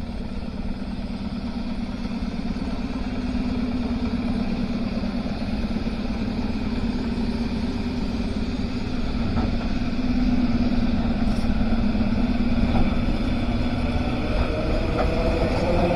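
Traction motors of an ED2T electric multiple unit accelerating: a steady low hum that grows slowly louder, with a rising whine coming in near the end as the train gathers speed.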